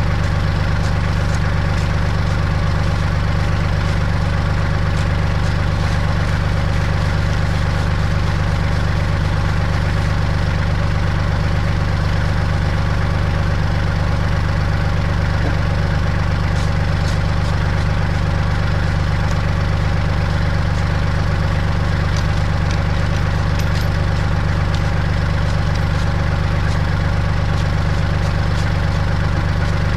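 An engine idling steadily, a low, even drone that does not change.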